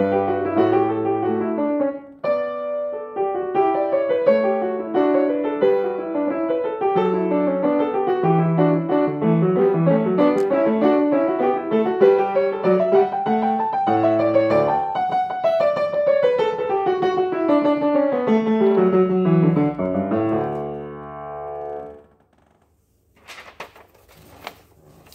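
Grand piano played solo: a flowing passage of broken chords under a melody that climbs and falls, with a short break about two seconds in. The playing fades out about twenty-two seconds in.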